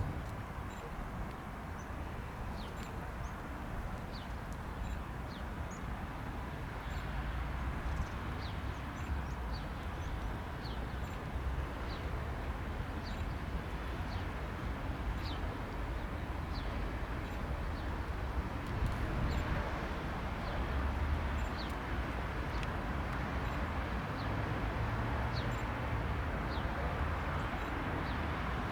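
Beech Super King Air's twin turboprops taxiing at a distance, a steady low rumble and hiss that grows slightly louder. Small birds chirp with short high notes every second or so over it.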